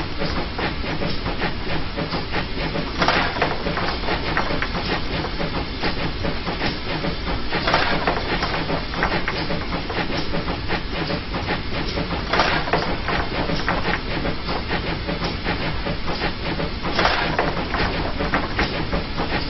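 GWR 0-6-0 pannier tank steam locomotive working, a steady hiss of steam and running noise with a louder rush about every four to five seconds.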